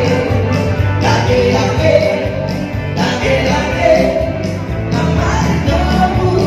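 Background song: a singer with band accompaniment over a full bass line.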